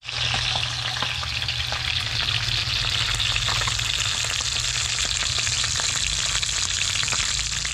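Whole fish frying in hot oil in a stainless steel pan: a steady sizzling hiss dotted with small crackles and pops. A steady low hum runs underneath.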